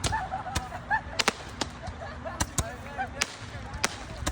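Fireworks going off in a quick, irregular string of sharp pops and bangs, about a dozen in four seconds.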